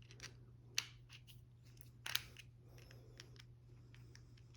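Small metal clicks and taps of a Torx driver working on a multi-tool's wire-cutter screw, with two sharper clicks about a second in and about two seconds in.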